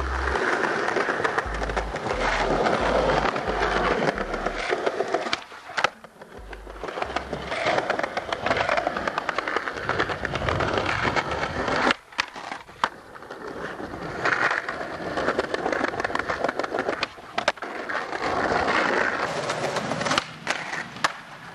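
Skateboard wheels rolling over smooth paving, a rumble that swells and fades as the rider passes, with sharp wooden clacks of the board popping and landing. Low bass notes from a music track sound in the first few seconds.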